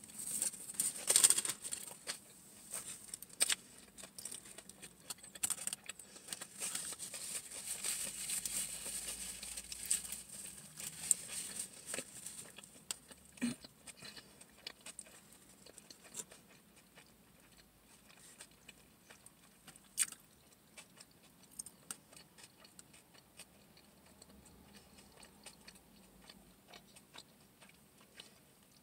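Chewing and mouth sounds from eating a ham, egg and cheese flatbread sandwich, with the paper sandwich wrapper rustling and crinkling as it is handled. The rustling and clicks are busiest in the first half, loudest about a second in, then give way to quieter chewing with scattered clicks.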